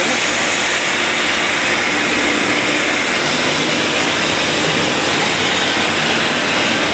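Oxygen generator plant's machinery running: the air compressor and refrigerated air dryer give a steady hum with a hiss over it.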